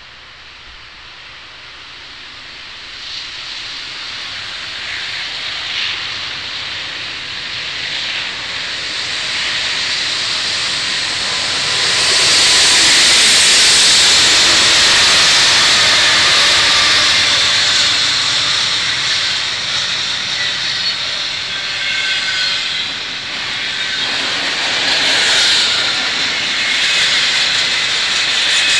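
Norfolk Southern diesel-electric locomotives approaching and passing close by, growing louder to a peak about halfway through. Then double-stack intermodal well cars rolling past with steady wheel-on-rail noise.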